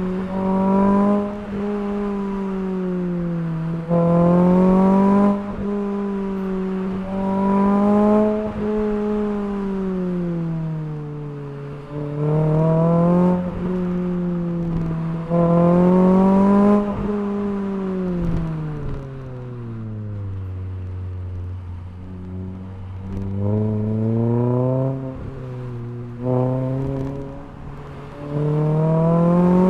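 Renault Clio 3 RS Cup's naturally aspirated 2.0-litre four-cylinder engine through an Akrapovič Evolution full exhaust, its revs rising and falling again and again as the car accelerates and lifts off. About two-thirds of the way in the revs sit low for a few seconds before climbing again.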